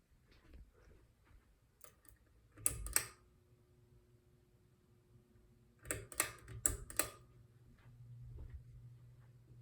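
A Progress Lighting AirPro Builder ceiling fan being switched: two clusters of sharp clicks, about three seconds and six to seven seconds in. A faint steady hum runs between the clusters, and a low motor hum rises near the end.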